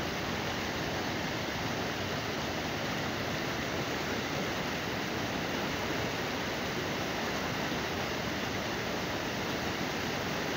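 Canal water pouring over a low concrete weir, a steady rushing with no change in level.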